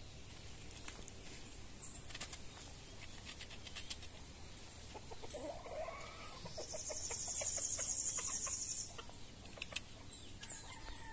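Yard birds and insects: a drawn-out, bending call about five seconds in, several short high chirps, and an insect buzzing for about two seconds near the middle, with light knife clicks on the produce.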